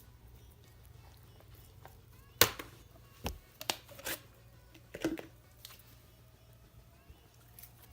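Slime containers being handled and opened: a handful of sharp plastic clicks and crackles, the loudest about two and a half seconds in, then a few more over the next three seconds.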